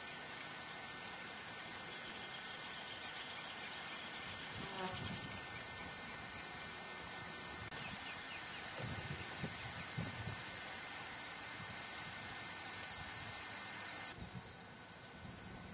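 Insects droning steadily in one continuous high-pitched note, which drops suddenly to a quieter level near the end.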